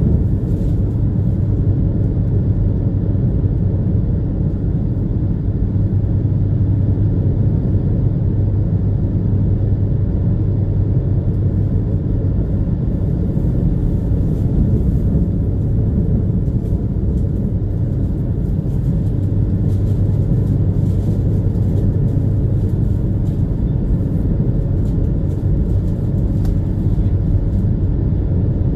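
Steady running rumble of the Super Jet "Dogo" high-speed passenger ferry under way: a constant low engine drone with a strong deep hum and a fainter higher steady tone.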